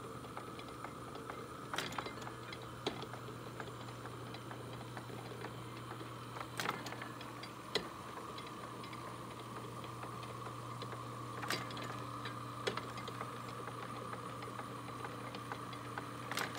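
Antique Deering reaper's rake reel turning over the platform. Its gearing and rake arms knock in pairs about a second apart, roughly every five seconds, over a steady low hum.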